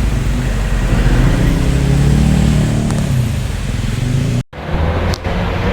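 Bus engine running under way with road noise, its pitch wavering a little. The sound drops out for an instant about four and a half seconds in, then the engine carries on.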